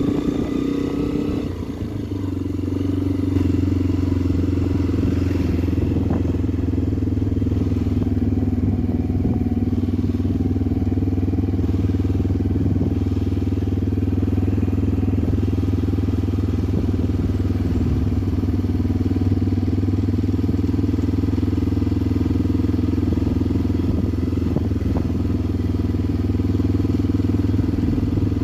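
Motorcycle engine running steadily while riding. It dips briefly about a second in, then picks back up.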